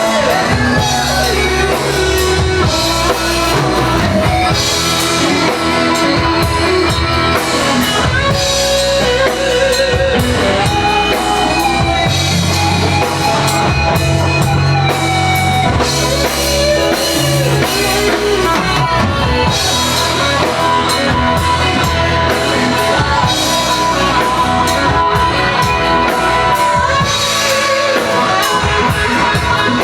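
A live rock band playing a song with electric guitar, drum kit and a lead singer, at a steady loud level.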